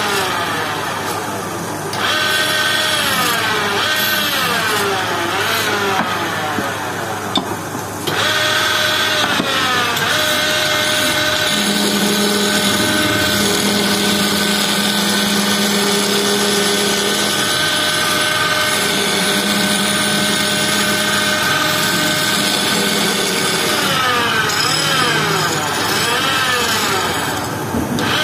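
Wood lathe running while a hand-held turning chisel cuts a spinning wooden spindle. Its whine slides up and down in pitch through the first ten seconds and again near the end, and is steadier in between.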